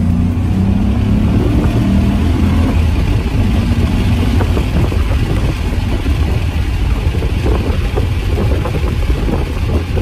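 A 2002 Ford Mustang GT's 4.6-litre V8 running as the car is driven, heard from inside the cabin with road noise and scattered small knocks and rattles.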